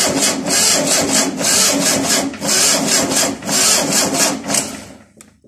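Starter motor cranking a VW Type 4 2-litre air-cooled flat-four engine, jumped straight from the battery with a jumper cable. It turns over in a steady, pulsing rhythm for several seconds and stops near the end without the engine catching.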